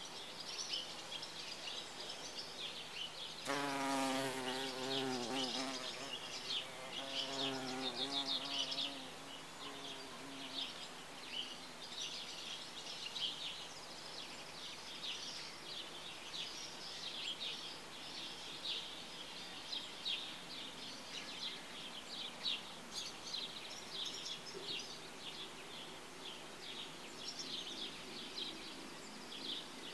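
A bumblebee's wings start buzzing about three seconds in as it takes off, recovered after feeding on honey. The buzz stops and starts again, then fades away by about ten seconds in. Birds chirp in the background throughout.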